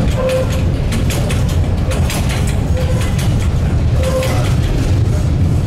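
Tram running along its track, heard from inside the car: a steady low rumble with many short clicks and rattles.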